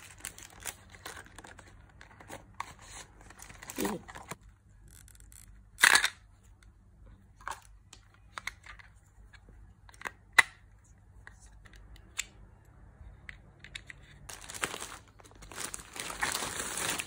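Unboxing of a small wireless mouse: scattered taps and rustles of a cardboard box being handled, with two sharp clicks about six and ten seconds in. Near the end, dense crinkling of plastic packaging.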